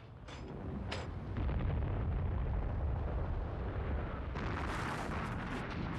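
A heavy explosion's rumble, the sound of battlefield shelling: a couple of sharp cracks at the start, then a deep rumble that swells about a second and a half in and slowly dies away near the end.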